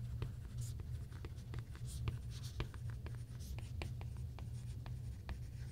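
Apple Pencil tip writing on an iPad Pro covered with a Paperlike matte screen protector: a faint paper-like scratching of handwriting strokes with many small ticks as the tip touches down. A steady low hum runs underneath.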